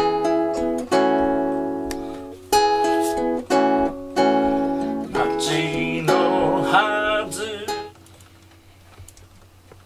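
Acoustic guitar strummed in chords, with a man singing a last note held with vibrato. The music ends about eight seconds in, closing the song.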